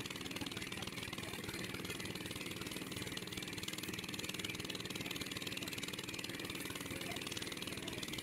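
A small engine running steadily at an even speed, a constant hum with a rapid regular pulse that does not change.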